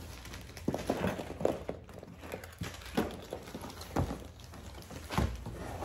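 A series of light knocks and clatters, spaced about a second apart, as small items such as packaged jewelry are picked up and set down on a table.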